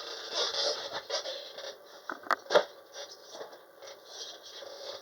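Handling noise: irregular scraping and rustling, with two sharp clicks close together a little over two seconds in.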